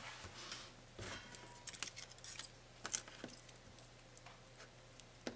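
Laptop parts being handled during disassembly: scattered light clicks and soft rustles, busiest in the middle, with a brief faint tone a little over a second in.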